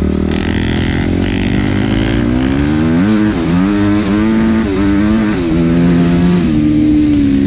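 Motorcycle engine running under load, its pitch rising and dropping again and again as the rider accelerates and shifts, with guitar music over it.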